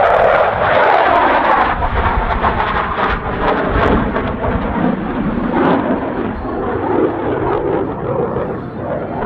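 CF-18 Hornet's twin General Electric F404 turbofan jet engines running at high power as the jet flies a rolling pass, with a dense afterburner crackle in the first few seconds. The sound eases slightly toward the end as the jet moves away.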